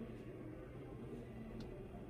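Faint showroom ambience: a steady low rumble with a light click about three-quarters of the way through.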